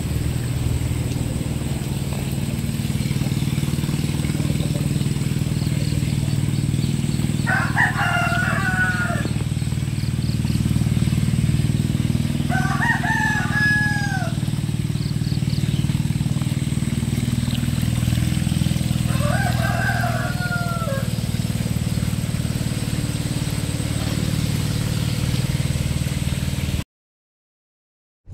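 A rooster crowing three times, each call about a second and a half long, over a steady low rumble. The sound cuts off suddenly near the end.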